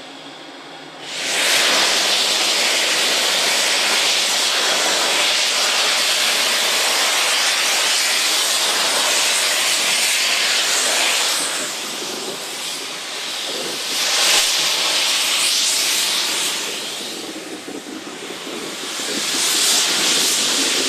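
Steam locomotive M4 blowing off steam: a loud hiss starts about a second in and carries on, easing off a couple of times and swelling again.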